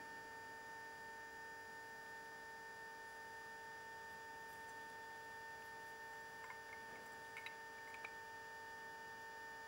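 Faint steady electrical hum with a few faint light ticks about six to eight seconds in, as a felt pen and steel square are handled against the housing.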